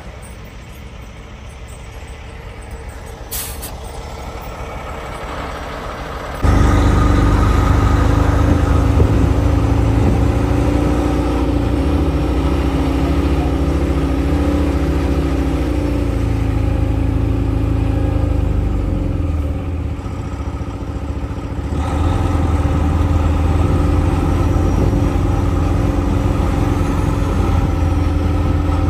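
For the first six seconds, road and tyre noise from a loaded log truck passing alongside on a wet highway, rising in level. Then, after a sudden jump, a log truck's diesel engine is heard from inside the cab, running steadily with a low drone that dips briefly about two-thirds of the way through.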